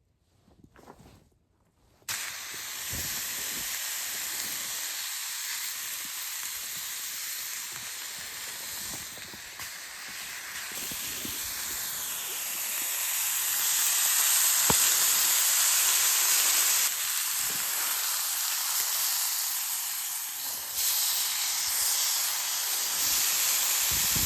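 New York strip steaks marinated in Worcestershire sauce sizzling in a hot pan: the sizzle starts suddenly about two seconds in as the meat goes in, then holds as a loud steady hiss that grows louder partway through.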